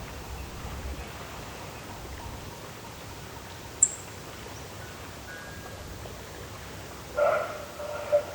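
Quiet early-morning outdoor ambience: a steady soft hiss, with a single high, sharp chirp about four seconds in and a short pitched call in two parts near the end.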